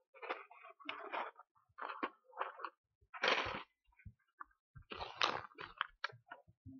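Irregular rustling, crackling and light knocks of things being handled at a lectern close to its microphone while a dry-erase marker is searched for, with the longest, loudest rustle about three seconds in and another just after five seconds.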